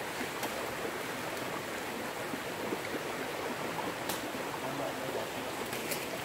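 Steady rushing of a nearby forest stream, with a few faint sharp clicks over it.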